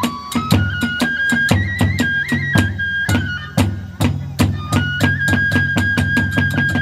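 Kagura hayashi ensemble: a bamboo transverse flute plays a held melody that steps between notes, over heavy taiko drum beats and quick, steady clashes of small hand cymbals, about five or six a second.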